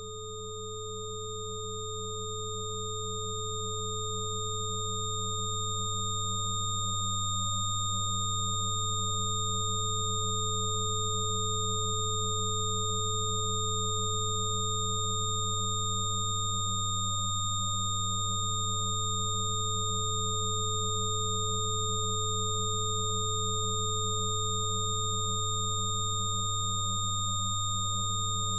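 Synthesized frequency-therapy tones: a deep steady tone with several higher pure tones layered above it, swelling in over the first few seconds and then holding steady. A middle tone briefly drops out about every ten seconds.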